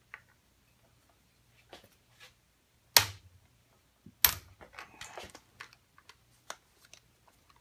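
Two sharp mallet blows, about a second and a half apart, on a wrench handle to break loose a stuck chuck on a 90-degree drill attachment, followed by a brief rattle of metal parts.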